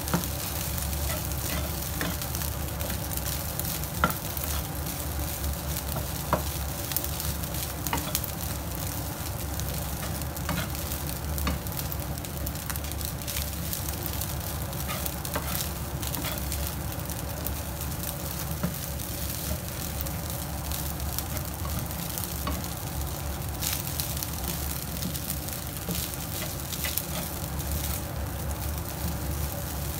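Rice sizzling and frying in a nonstick pan while a wooden spatula stirs and scrapes it, with occasional sharp clicks of the spatula against the pan.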